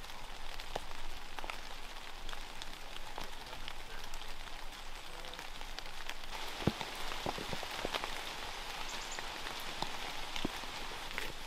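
Steady rain, with many separate drops striking close by.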